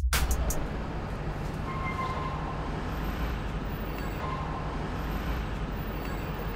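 Steady city street ambience: a continuous low rumble of traffic.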